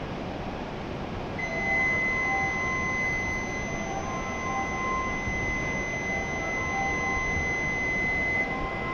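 Electronic departure signal on a Shinkansen platform: a steady high tone held for about seven seconds, starting about a second and a half in, with short melodic notes sounding on and off beneath it.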